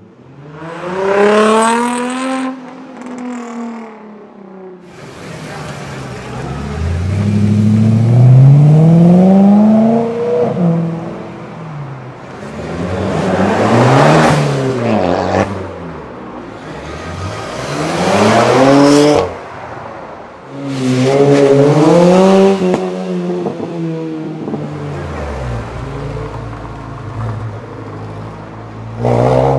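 Several sports cars accelerate away one after another, giving about six loud bursts of revving. Each engine note climbs in a rising sweep and drops back at the gear changes. A Nissan 350Z comes first, a Fiat Abarth 500 around the middle and a Lotus Elise near the end.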